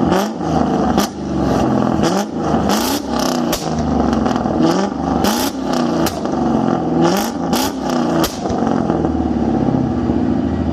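Straight-piped Mustang GT's 4.6-litre V8 revved again and again in quick blips, with sharp pops and bangs cracking from the exhaust. These are backfires forced by the ignition cut of a wide-open-throttle launch-control box, the setup used to shoot flames.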